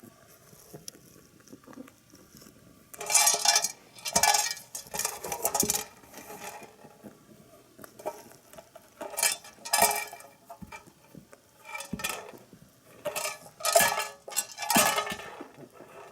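Hay pellets rattling and clinking inside a pepper shaker as a rabbit pushes it about to get at the pellets, in several short bouts with pauses between.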